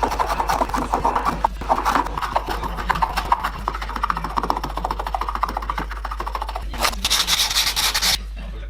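Quick hand rubbing strokes on a wooden ash bowl, like sanding or rasping, in a dense scratchy run. The strokes turn brighter and harsher about seven seconds in and stop abruptly just after eight seconds.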